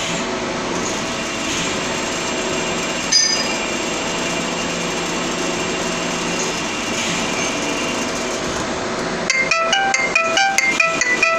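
CNC machine running a program: steady mechanical running noise with several steady tones, and a single sharp metallic clink about three seconds in. Music with quick repeating notes comes in about nine seconds in.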